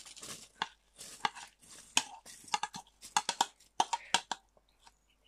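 Soaked rice being tipped from a dish into a pot of boiling stock: a run of irregular clicks and rattles as the grains slide off the dish and drop in, stopping shortly before the end.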